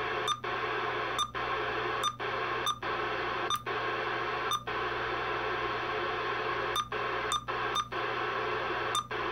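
Loud, steady static hiss from a Uniden Bearcat 980SSB CB radio's speaker on the 27 MHz band, with a low hum under it. About ten times, each time it steps up a channel, it cuts out for an instant with a short blip. Only static comes through on every channel: no skip signals are coming in.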